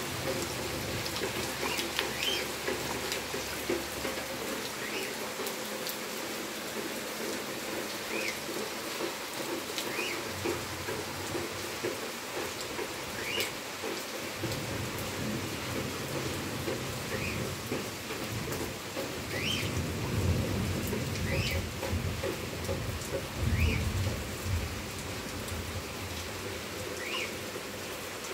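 Heavy rain falling steadily. Short high chirps come every second or two, and low rumbles swell in the second half, loudest a little past the middle.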